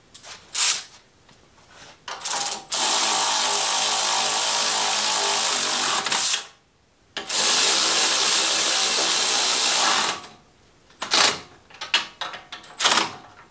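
Handheld power tool run in two steady stretches of about three seconds each, with a short pause between, driving down the handlebar clamp bolts.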